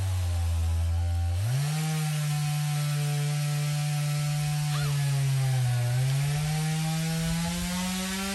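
Gasoline chainsaw running, revving up about a second and a half in and held at high speed while cutting wood. The pitch sags briefly around six seconds in as the chain bites, then climbs again.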